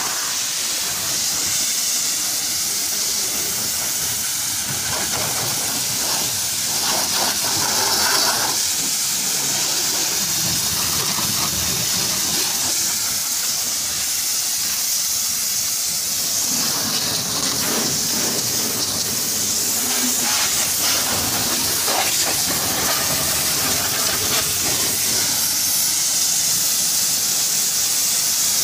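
Garden hose spray nozzle jetting water onto a car's body and windows: a steady hiss of spray with water spattering on the panels and glass, as the car shampoo is rinsed off.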